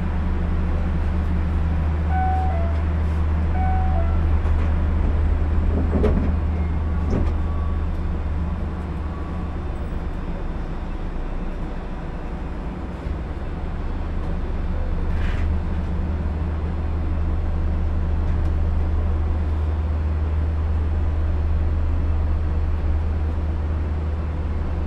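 Steady low hum of an Osaka Monorail train, heard from its front cab, as it stands at a station and then pulls away in the second half. Two faint clicks come about six and seven seconds in.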